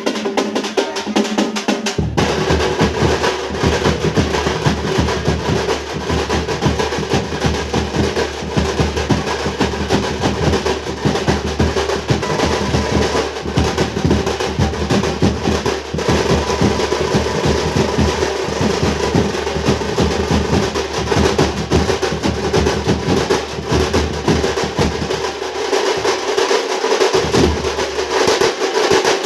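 A troupe of Tamil folk drums playing fast, dense rhythms with rapid rolls. A deeper drum joins about two seconds in.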